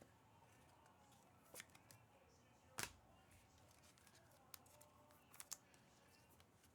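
Faint, scattered clicks and light rustling of trading cards being handled and sorted by hand, with the sharpest tap a little under three seconds in.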